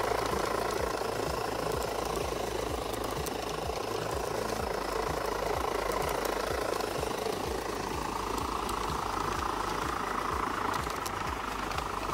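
G-scale model steam tank locomotive running along garden track: its electric motor and gearing whir steadily, with a regular low ticking from the running gear and rail joints, and the whine grows stronger about eight seconds in.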